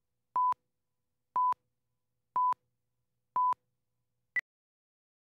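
Broadcast slate and countdown leader tones: four short beeps of one steady pitch, one a second, then a single very short, higher pip about a second after the last.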